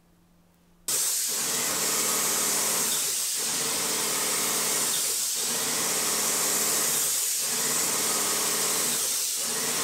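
Wagner airless paint sprayer spraying paint onto a wall: a loud steady hiss of paint atomising at the gun tip over the steady hum of the pump. It starts abruptly about a second in and dips briefly about every two seconds.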